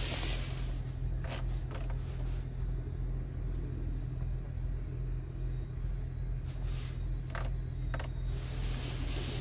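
Scania R tractor unit's engine idling, a steady low hum heard inside the cab. A few short clicks from the dashboard climate-control buttons and knob being pressed.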